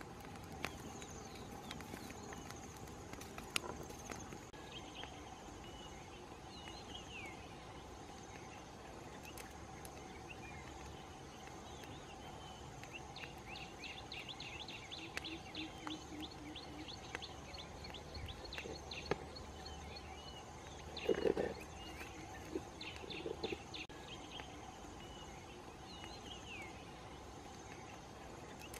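Outdoor ambience of birds chirping over a steady high insect drone, with a fast run of repeated chirps in the middle. A few sharp crackles from the wood fire are heard, and a louder knock comes about two-thirds of the way through.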